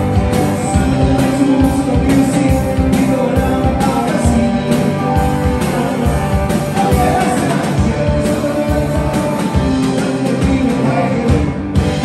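Live rock band performance: a man singing over guitar and a full band.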